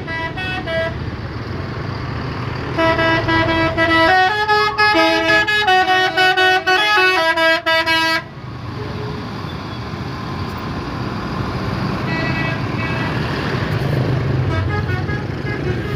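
Telolet horns on PO Haryanto buses, multi-tone musical horns, playing a fast melody of short toots for about five seconds from roughly three seconds in, with shorter toot bursts near the start and again later. Bus engines run underneath.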